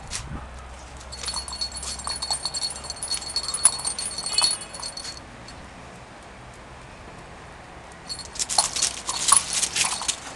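Dogs running and scrambling after a ball on a concrete floor: rapid clicking of paws and claws with a light jingling, in two spells about 1 to 5 seconds in and again about 8 to 10 seconds in.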